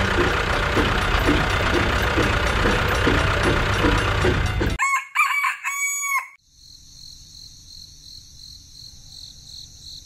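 A tractor engine sound effect runs loud and rough with a faint regular pulse, then cuts off abruptly about five seconds in. A rooster crows, and a faint steady high-pitched ringing follows.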